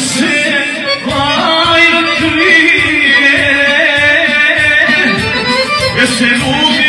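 A man singing a Sandžak folk song into a handheld microphone over live instrumental accompaniment, the melody wavering and ornamented throughout.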